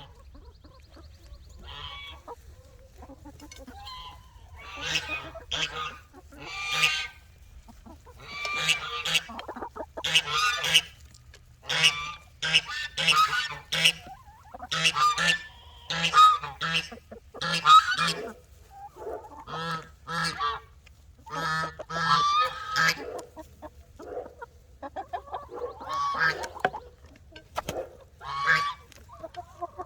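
A flock of poultry giving a rapid run of loud, honking squawks, many short calls one after another, while they are fed scraps.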